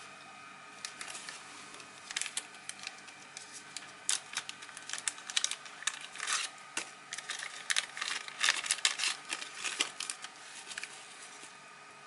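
Small clear plastic bag crinkling and crackling as it is handled and opened to take out a key-fob remote, a dense string of sharp crackles from about a second in until near the end.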